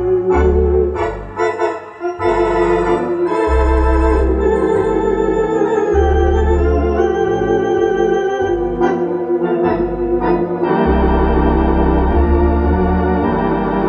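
Rodgers 333 Olympic three-manual electronic theatre organ being played: sustained chords with a wavering vibrato over pedal bass notes that change every second or two.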